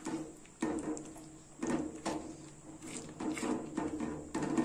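Silicone spatula stirring and scraping thick mango halwa in a nonstick kadai: soft, irregular squelching strokes of the paste against the pan, over a faint steady hum.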